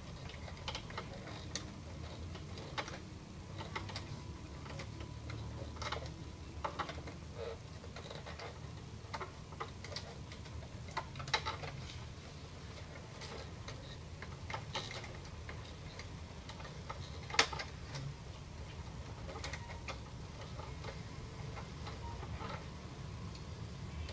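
Irregular small clicks and taps of plastic parts being handled inside a partly disassembled Epson L210 inkjet printer, around its print-head carriage, with one sharper click about two-thirds of the way through. A steady low hum runs underneath.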